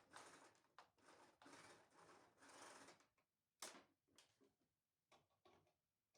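Faint household cleaning and handling sounds: a few soft rubbing strokes, then a sharp click and several light knocks.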